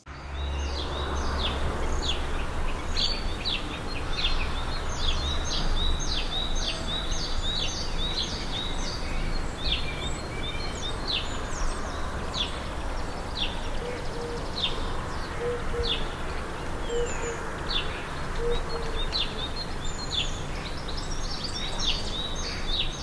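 Outdoor ambience of many small birds chirping and twittering in quick, high calls, over a low rumble that is strongest in the first several seconds.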